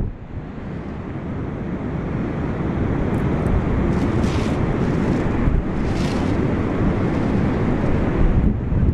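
Wind buffeting the microphone: a loud, continuous low rumble, with two brief hissing rushes about four and six seconds in.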